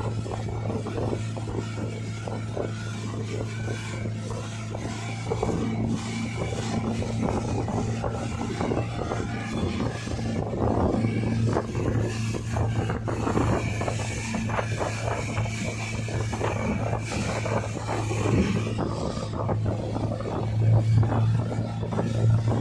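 Mercury outboard motor running steadily at speed with a constant low hum, over the rush of the churning wake and wind on the microphone.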